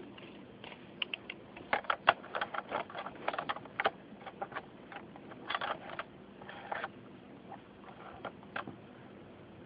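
Irregular small clicks, knocks and rattles of an accessory rail being fitted by hand onto an M4 carbine airsoft rifle, coming in clusters with short pauses between.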